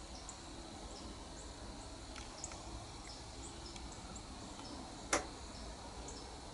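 Faint field ambience with scattered short, high bird chirps over a low background hush. One sharp click stands out about five seconds in.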